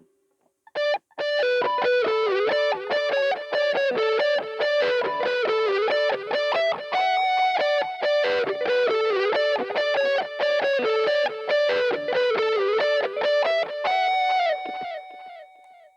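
Electric guitar played through a BOSS GT-100 multi-effects processor on a distorted preset: a picked run of single notes starting about a second in, ending on a held note that fades away near the end.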